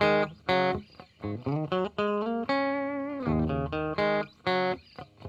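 Intro music: a guitar playing a melody of separate plucked notes, some of them bending in pitch.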